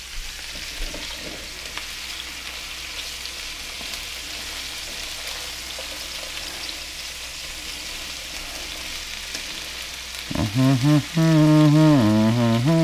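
Food sizzling steadily in a hot frying pan. About ten seconds in, a low voice breaks in with a loud wordless tune.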